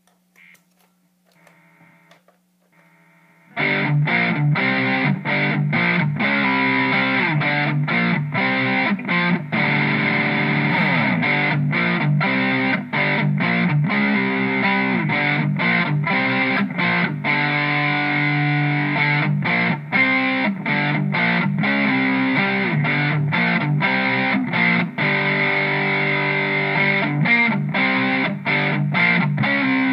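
Distorted electric guitar playing riffs, coming in loud about three and a half seconds in after a few faint notes, with frequent short breaks between chords.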